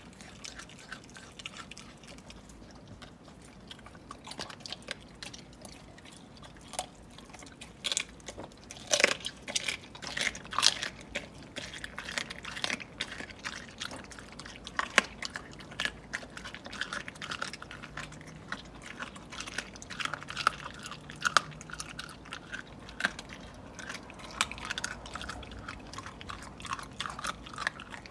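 An Aussiedoodle eating its raw meal from a bowl: wet chewing and licking broken by sharp crunches, heaviest about eight to eleven seconds in and again around fifteen seconds.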